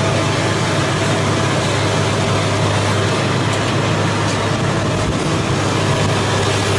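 Heavy diesel engine of a long-reach demolition excavator running steadily, with a deep, even hum.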